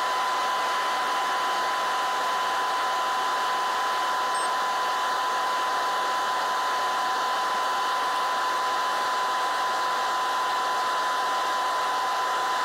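Cockpit noise of a Cessna 208 Caravan turboprop in flight: a steady, even hiss with a thin steady whine running through it and almost no low rumble.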